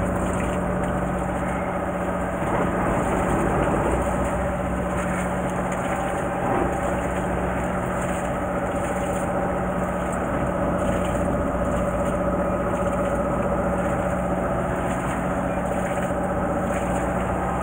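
Fishing boat's engine idling: a steady hum with a fixed tone that does not change.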